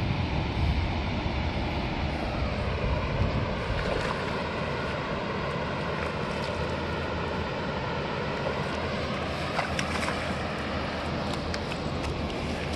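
Wind buffeting the microphone over a steady outdoor rush, heaviest in the first few seconds. A few sharp clicks near the end as a hooked rohu is landed and flaps on the grass.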